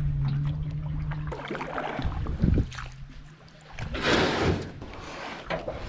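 Canoe paddling: paddle strokes and water against an aluminum canoe. A low steady hum stops about a second in, and a louder brief swish comes about four seconds in.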